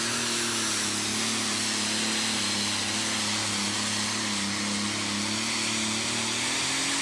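Super stock pulling tractor's turbocharged diesel engine running flat out under load as it drags the weight-transfer sled. The note is loud and steady, sags a little in pitch midway and climbs again near the end.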